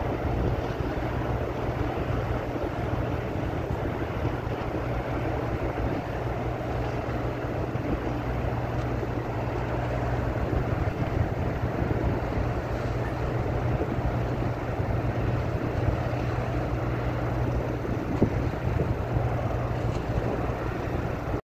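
Steady low engine hum over a constant rushing noise, with no clear changes.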